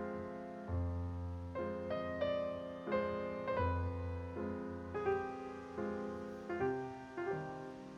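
Background piano music: a slow, gentle piece with single notes struck about every half second over sustained chords, and a low bass note every few seconds.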